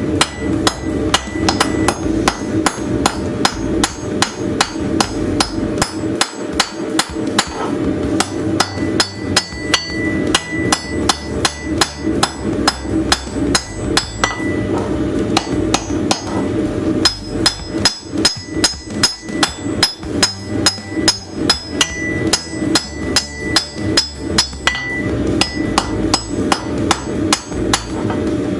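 Hand hammer forging a railroad spike: a steady run of sharp metal-on-metal blows, about three to four a second, each with a short ring, over a steady low hum.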